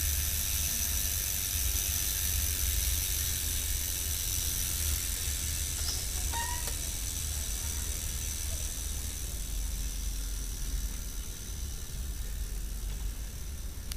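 Novatec Factor rear hub's freehub buzzing as the rear wheel spins freely on a stand, its pawl clicks running together into a high buzz that fades over the stretch. A low rumble runs underneath, and there is a brief chirp about six and a half seconds in.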